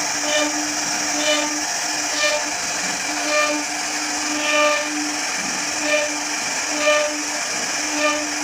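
CNC machine running: a steady mechanical hum with a constant low tone, and a pitched whine that swells and fades about once a second as the machine works.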